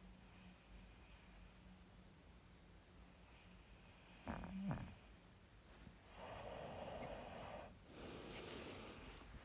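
A man snoring quietly: several rough breaths a few seconds apart, with a short snort about four seconds in.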